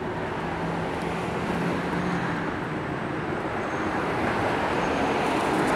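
Steady city street traffic noise, a continuous wash of passing vehicles that grows louder near the end.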